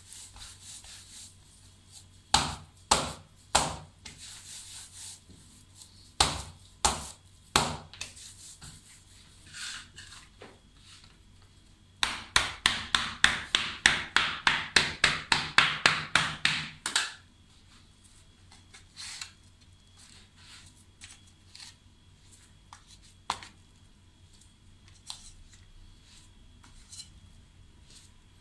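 Plastic dough scraper chopping a rolled poppy-seed dough log into pieces against a marble counter: a few separate sharp knocks, then about five seconds of quick even chops, about four a second, after which only faint light taps remain.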